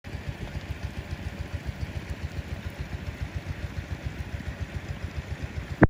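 An engine idling with a low, rapid, regular throb. A sharp click near the end is the loudest sound.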